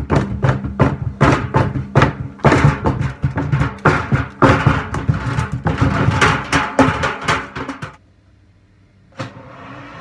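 Washing machine drum spinning with a mallet inside, the mallet clattering and banging against the drum in rapid, loud knocks over a steady motor hum. The banging stops about eight seconds in; after a short quiet comes a click and then a steady whir.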